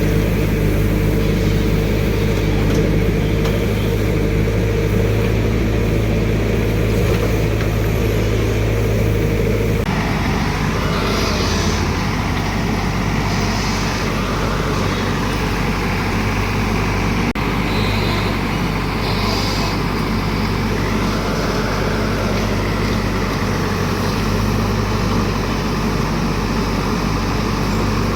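JCB excavator's diesel engine running steadily while it digs, with a deep hum. About ten seconds in the sound changes abruptly, and a few brief higher-pitched noises come and go after that.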